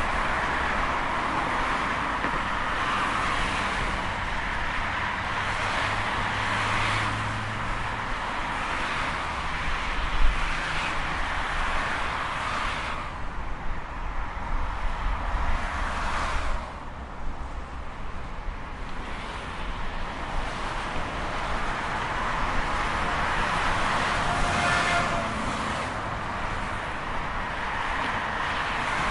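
Highway traffic: a steady rush of tyre and engine noise as vehicles pass one after another, swelling and fading. A deeper engine hum stands out about seven seconds in, and the traffic thins to a quieter lull a little past the middle.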